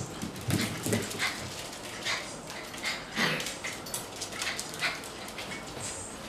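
Puppies at play, giving short high yips and whimpers several times, with their claws clicking on a hard floor.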